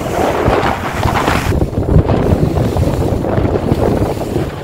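Rigid inflatable rescue boat running fast over choppy sea: loud wind buffeting the microphone over the rush and slap of water and spray against the hull.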